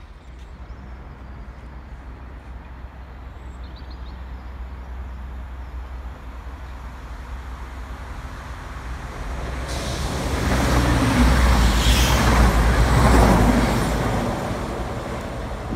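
CrossCountry Voyager diesel multiple unit running through the station at speed. Its engine and wheel noise builds from about eight seconds in, is loudest as it passes about twelve to fourteen seconds in, and begins to fade near the end, over a low rumble heard from the start.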